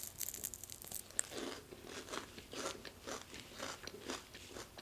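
Close-miked chewing of a crispy battered onion ring: a run of crisp, irregular crunches, with a sharper crack about a second in.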